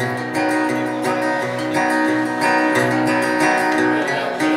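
Acoustic guitar strummed solo, held chords ringing on between regular strums, in the instrumental close of a song.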